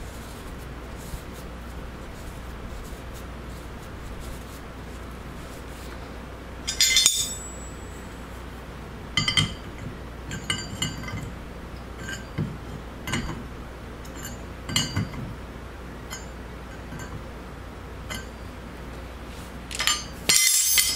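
Metal clinks and clicks of a steel wrench working a threaded part into a cast-iron Gresen hydraulic control valve body as it is tightened. There is a loud clink about seven seconds in, a run of small clicks after it, and a louder metallic clatter just before the end.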